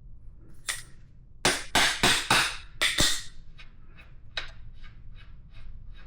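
Rear axle of a Kawasaki KLR650 being tapped out of the swingarm: about six sharp metallic strikes with a short ring, in two quick groups between about one and a half and three seconds in, then lighter clicks and clinks of metal parts.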